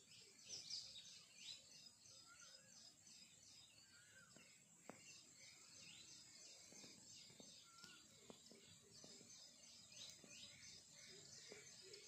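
Faint outdoor birdsong: many quick high chirps repeated in runs, with a few lower whistled notes, over a steady high hiss.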